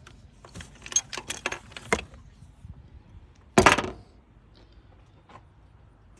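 Metal hand tools clinking as they are handled, then one louder metallic clank with a brief ring about three and a half seconds in, as a tool is set down.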